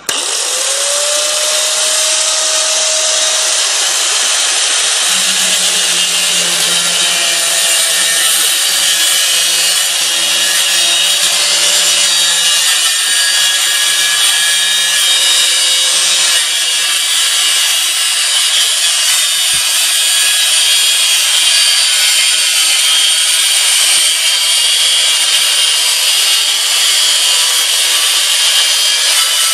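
Angle grinder spinning up and cutting through sheet metal: a continuous high, hissing cutting noise over the motor's steady tone.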